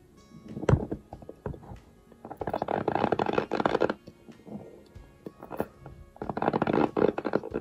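Close-up chewing of a mouthful of dry cornstarch: crunchy, squeaky crackling in two long runs, one about two seconds in and one near the end, with a soft thump near the start.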